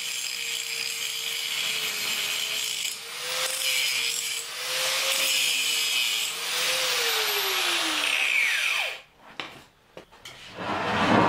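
Angle grinder grinding back a fresh weld on a wrought iron gate. It runs steadily with a held pitch that wavers a little under load, then is switched off about seven seconds in and its pitch falls as the disc spins down. Near the end a different, louder noise starts.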